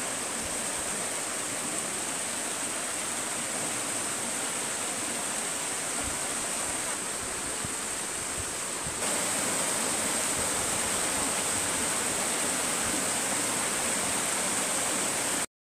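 Water of a small stream running over rocks in a shallow cascade, a steady rush. It steps up louder about nine seconds in and cuts off abruptly just before the end.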